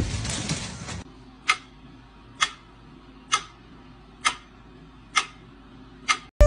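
A noisy passage cut off about a second in, then six sharp clicks evenly spaced about once a second, a steady ticking beat.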